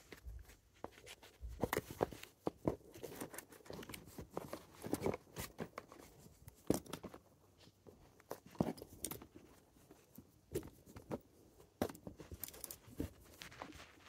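Silicone and plastic fidget toys shuffled and piled by hand in a storage bin: irregular soft knocks, taps and rustles.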